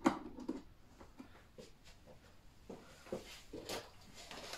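A sharp click as a front support leg of the box laptop stand is locked into place, then faint scattered taps and rustles of the box being handled.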